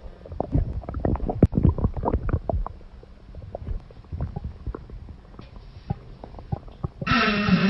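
A woman's stomach and bowels gurgling and rumbling, in many short, irregular pops, busiest in the first couple of seconds and sparser after. Near the end comes a louder, drawn-out rumble with a clear pitch. It is the gurgling of a bowel that urgently needs emptying after a long hold.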